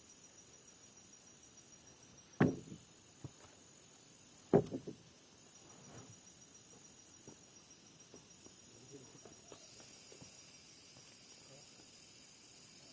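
Insects chirring steadily in a high thin drone, broken by two loud sharp knocks about two seconds apart and a few faint taps.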